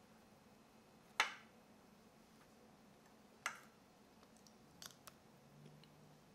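Metal spoon clinking and scraping against a ceramic bowl while scooping ice cream: a sharp clink about a second in, another at about three and a half seconds, and two lighter taps close together near the end.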